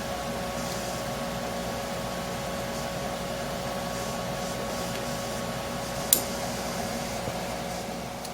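Steady mechanical hum with a constant tone, and a single sharp metallic click about six seconds in.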